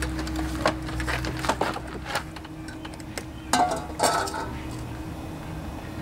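A stainless steel bowl clanking against a lawnmower deck as the mower is tipped onto its side to drain its overfilled engine oil into the bowl: a string of knocks and clanks, the loudest two about three and a half and four seconds in with a brief metallic ring.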